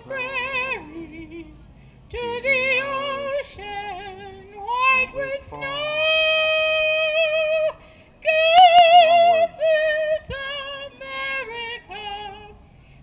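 An older woman singing solo into a microphone, amplified through PA speakers, with a wide vibrato. She holds a long note about six seconds in and another just after eight seconds.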